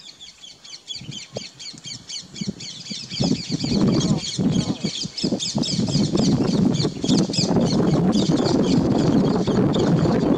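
A chorus of many birds calling at once, with rapid, repeated high chirps over denser, harsher calls that build up and grow loud about three seconds in.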